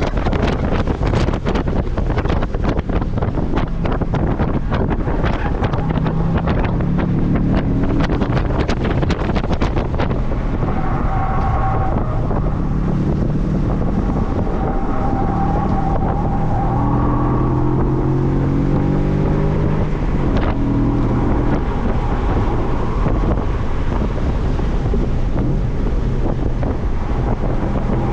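Audi B7 RS4's 4.2-litre V8 at track speed, its pitch climbing and dropping repeatedly with gear changes and lifts. Heavy wind buffeting on the microphone dominates the first several seconds and stays under the engine.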